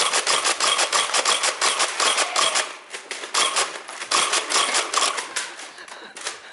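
Rapid, irregular clicking clatter, many clicks a second, dropping away briefly about three seconds in and thinning out near the end.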